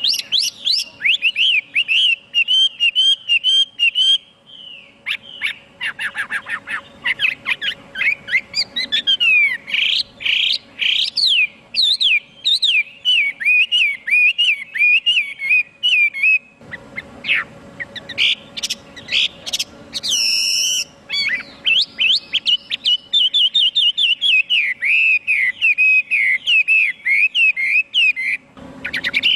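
Chinese hwamei (họa mi) singing a loud, varied song of rapid whistled notes, sweeps and trills, broken into phrases by two short pauses.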